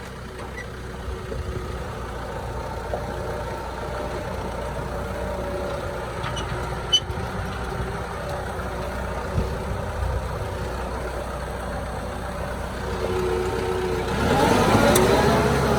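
A motor vehicle's engine running steadily, then rising in pitch and getting louder near the end as it speeds up.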